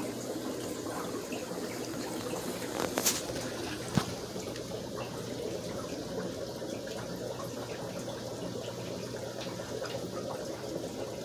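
Steady bubbling and trickling of aquarium filtration, air-driven filters running in the fish tanks, over a low steady hum. Two brief clicks about three and four seconds in.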